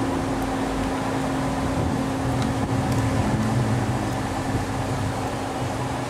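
Steady machine hum with a constant low tone and rumble, and a few faint small clicks.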